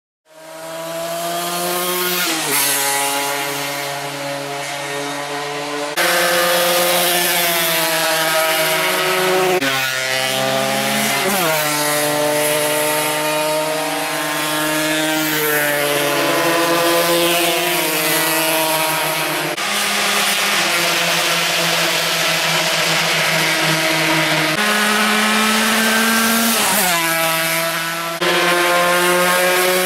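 Racing motorcycle engines running at high revs, the pitch holding steady and then stepping up and down with throttle and gear changes, with some short rising sweeps. The sound begins abruptly just after the start and jumps suddenly in level several times.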